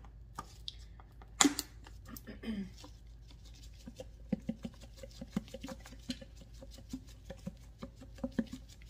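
Grated Parmesan being shaken out of a plastic shaker canister into a pot of tomato sauce: one sharp click about a second and a half in, then a quick, uneven run of light ticks and taps from the shaking.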